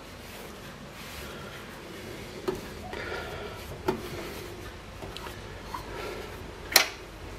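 A small metal hand safe being handled: two knocks, then a sharp, louder click near the end, like its door or lock catching.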